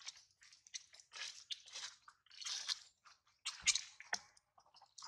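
Close crunching and chewing: irregular crisp crackles, with one dull knock about three and a half seconds in.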